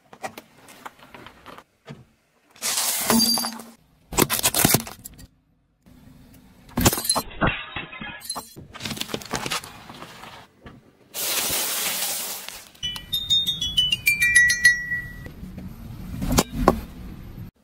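A car tyre rolling over and crushing a string of small objects: short separate bursts of crunching, popping and brittle shattering. Near the end a toy xylophone's metal bars ring out in a run of notes stepping down in pitch, followed by one more crunch.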